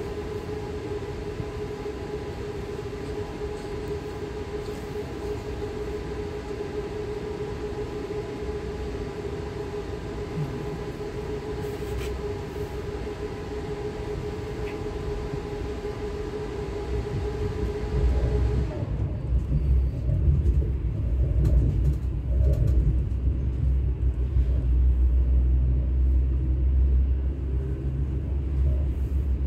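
ES2G Lastochka electric train in motion: a steady ride noise with an even, high whine over a low rumble. About two-thirds of the way through, the whine stops and a louder low rumble takes over.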